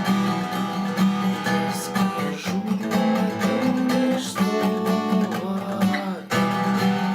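Acoustic guitar music: strummed chords, with a short break just after six seconds before the strumming resumes.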